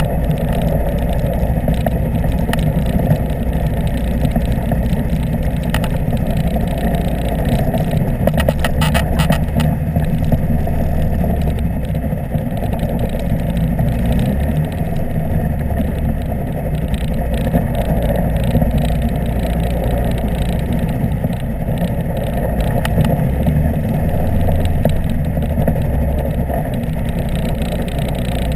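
Apollo Jet Star microlight trike's engine and pusher propeller running steadily at low taxiing power.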